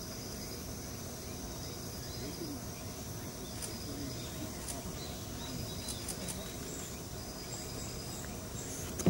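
Steady insect droning in two high, even bands over a low background rumble, with one sharp click near the end.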